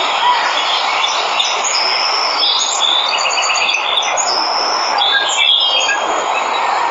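Steady rush of a waterfall with several birds chirping and trilling over it, most busily in the middle.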